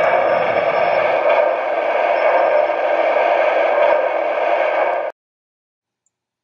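Lionel O-gauge Southern Pacific steam locomotive and tender running along three-rail track: a steady rolling rumble and clatter with no proper chugging. The owner puts the missing chug down to a faulty sound board in the tender. The sound cuts off suddenly about five seconds in.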